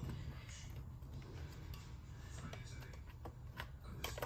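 Light plastic clicks and taps, scattered and irregular, as the hard plastic cassette door of a Cricket talking doll is pressed and worked against its clips on the doll's back.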